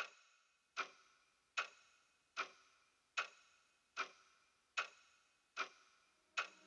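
Quiet, steady clock-like ticking in a song's intro: nine short pitched ticks, about one every 0.8 seconds, each ringing briefly. A low held chord begins to come in right at the end.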